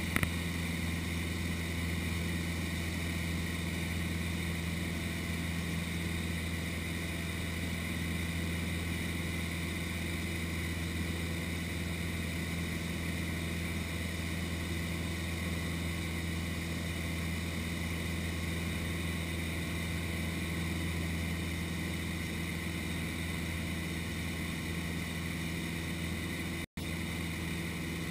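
Cessna 152's four-cylinder Lycoming engine and propeller droning steadily in cruise, heard from inside the cabin with a hiss of air over the airframe. The sound drops out for an instant near the end.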